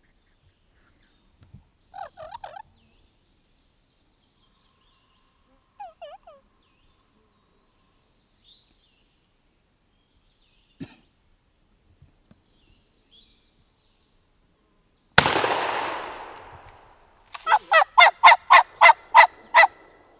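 Wild turkeys gobbling faintly twice, then a single loud shotgun shot about 15 seconds in that dies away slowly, followed by a quick string of about nine loud, close turkey calls.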